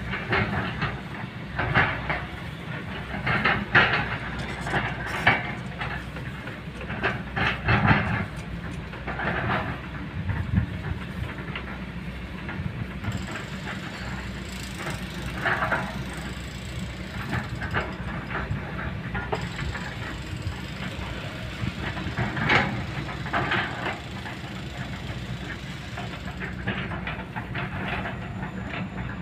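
Kobelco long-reach excavator's diesel engine running steadily as the machine works, with irregular metallic clanks and knocks, most of them in the first ten seconds and a few more later.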